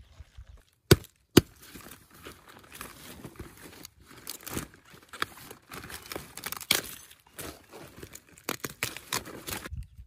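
Irregular crackling and rustling with many small clicks, two sharp snaps about a second in.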